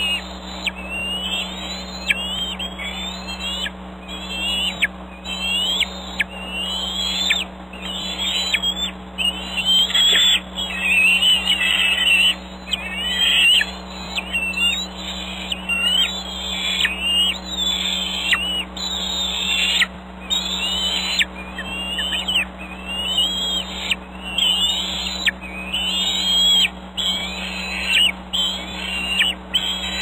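Bald eaglets giving high, squealing begging calls, roughly one a second and each rising then falling in pitch, a sign that they are being fed or want food. A faint steady hum runs underneath.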